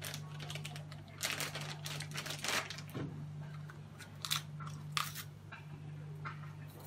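A small clear plastic bag crinkling and crackling in the hand in short, sharp bursts as small parts are taken out of it, over a low steady hum.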